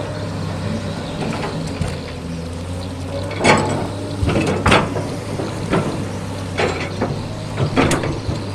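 Excavator's diesel engine running steadily, with about five sharp clanks or knocks over the second half.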